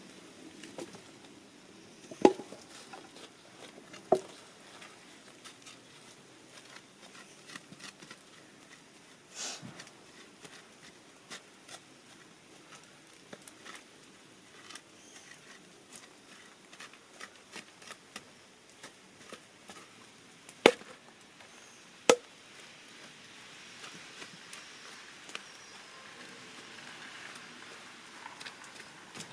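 Irregular sharp knocks, a handful much louder than the rest, over many small light clicks, with a faint steady hiss coming in during the last few seconds.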